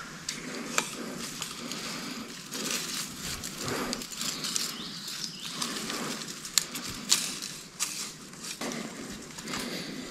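Rustling and crackling of tall weeds against clothing and gear as a person moves among dense stems, with several sharp snaps.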